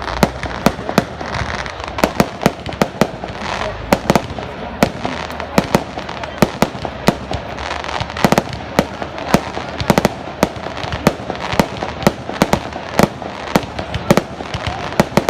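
Fireworks display: a rapid, irregular barrage of sharp bangs, several a second, over a continuous crackling wash.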